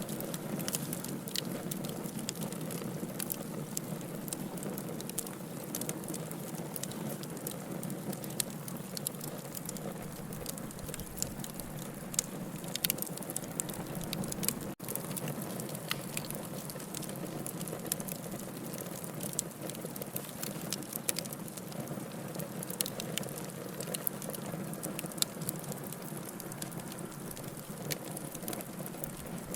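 Wood fire in a fireplace burning steadily, with a constant hiss and many small crackles and pops. The sound cuts out for a split second about halfway through.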